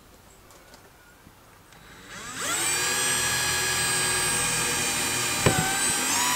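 Power drill spinning up with a quick rising whine about two seconds in, then running steadily at high speed as it drills into the timber cladding. The pitch sags briefly near the end under load and picks up again.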